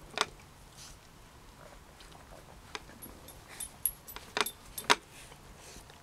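A German shepherd puppy nosing and mouthing a plastic bucket: a handful of sharp knocks and clatters, with light metallic clinks, the loudest knocks about four and five seconds in.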